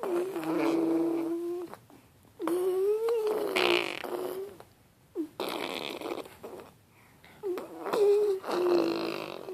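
Cat meowing: a run of drawn-out, steady-pitched calls, each lasting a second or two, with short pauses between them.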